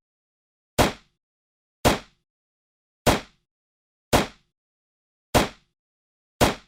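9mm pistol firing six single shots about a second apart, each a sharp crack that dies away quickly, with silence between.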